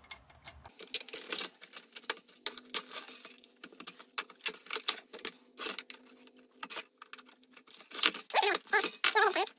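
Rapid, irregular small metal clicks and taps as parts of a tin Rayo Pony No. 21 kerosene lantern are worked loose by hand, with a faint steady hum behind.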